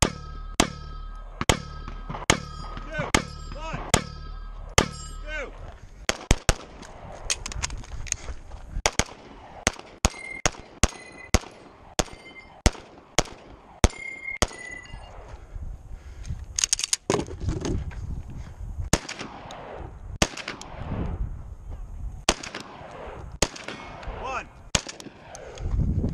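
Handgun shots fired at steel targets, each hit followed by the ringing of the steel plate. There are about two shots a second at first, then quicker, uneven strings of shots with higher-pitched rings.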